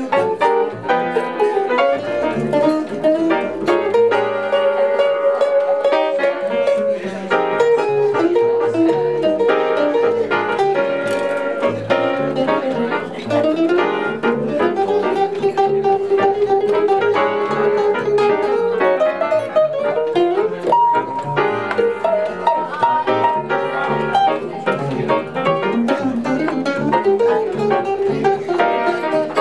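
Live jazz: an archtop electric guitar playing a single-note melodic solo line with some long held notes, over a walking upright bass.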